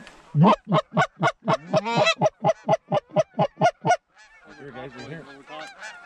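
A hunter's goose call blown in a fast, even string of loud clucks, about five a second, stopping abruptly about four seconds in. A flock of Canada geese then honks, fainter, with many voices overlapping.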